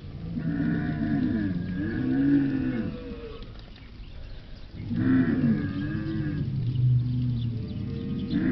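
A large animal calling: two long, low, moo-like bellows with a rising-then-falling pitch, the second starting about five seconds in.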